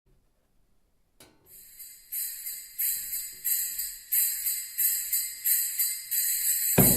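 Music playing through a JBL Control 5 loudspeaker. After a second of near silence, a jingling percussion pattern starts, about one and a half hits a second and growing louder. Drums and bass come in just before the end.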